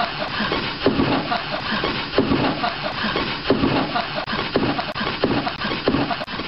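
Rhythmic rasping, scraping strokes, about three every two seconds, like wood being sawn or rubbed.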